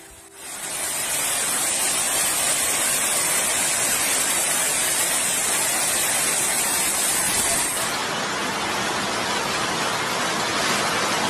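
Hailstorm: heavy hail and rain pelting down in a dense, steady hiss, changing slightly in character about eight seconds in.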